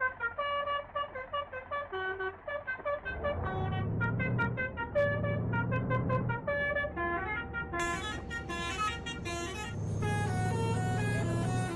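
Basuri 'telolet' multi-tone bus horn on a Haryanto bus playing a quick melody of short, stepped notes. A lower hum comes and goes underneath from about three seconds in.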